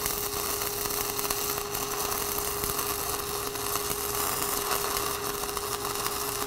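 Stick-welding arc from a 6010 electrode at 90 amps, burning steadily and crackling during a vertical-up hot pass on steel plate, with a steady hum underneath.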